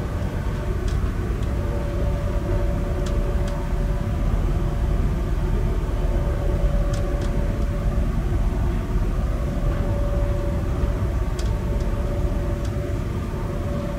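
Passenger train running at speed, heard from inside the carriage: a steady low rumble of wheels on rails with a humming tone that fades in and out, and a few faint ticks.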